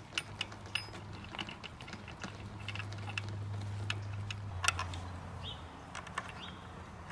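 Irregular light clicks and small metallic clinks of a child's bicycle wheel and its axle being fitted by hand to a wooden roof-batten frame. A low steady hum runs underneath.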